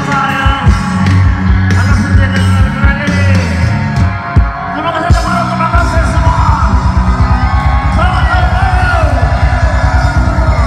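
Live rock band playing loud through a PA, with a singer, heard from within the crowd. About six seconds in, the drums change to a fast, even beat.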